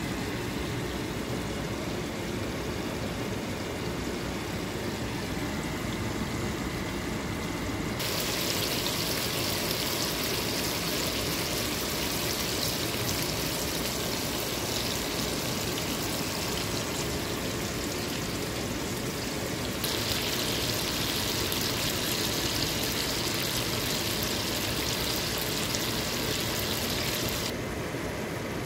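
Grouper fillets frying in butter in a skillet: a steady, bright sizzle that starts suddenly about a third of the way in, grows louder partway through and cuts off sharply near the end. A constant low background rumble runs underneath.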